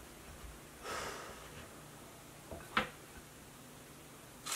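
Faint handling sounds from chicken being dredged in seasoned flour: a soft rustle about a second in and one light click near three seconds, over a quiet room hum.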